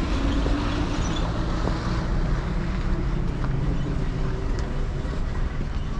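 Traffic noise: a vehicle engine humming over a steady rumble of road noise.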